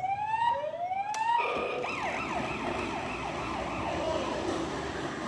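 Electronic police siren from a toy police car's small speaker. It plays rising whoops about once a second, then after a click about a second in it switches to a faster warbling yelp.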